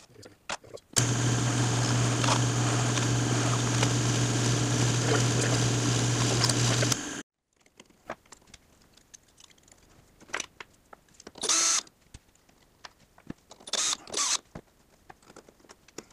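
Drill press running steadily with a strong low hum while drilling holes in a plastic wingtip adaptor. It cuts off abruptly about seven seconds in, after which only faint handling clicks and two brief rustling sounds are heard.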